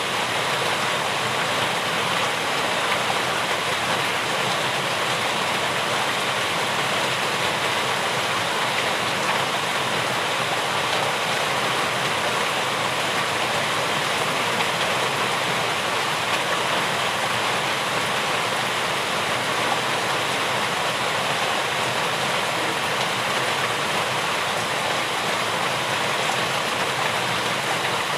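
Rain falling steadily, an even hiss that doesn't change or break.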